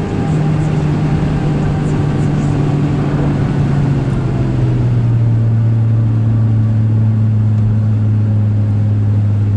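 Volkswagen Golf Mk5 GTI's turbocharged four-cylinder engine running loud and steady, heard from inside the cabin over road and wind noise. Its note steps down in pitch about halfway through and then holds steady.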